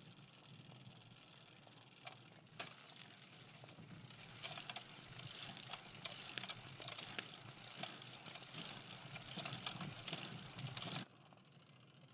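Faint crackling hiss with scattered sharp clicks. It grows busier and more crackly about four seconds in, then cuts off suddenly near the end.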